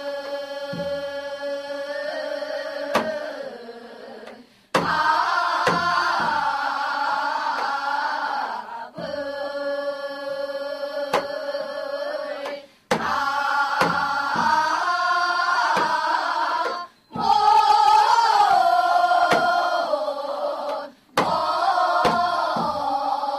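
Gyeonggi folk song (Gyeonggi sori) sung by a group of women in call and response: quieter phrases from a lead voice alternate with louder, fuller phrases from the chorus, with short breaks between them. A janggu hourglass drum strikes now and then under the singing.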